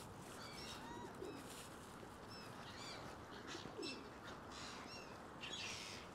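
Faint bird calls: short high chirps repeating every second or so, with a couple of low pigeon coos, from a flock of pigeons and other birds gathered to be fed.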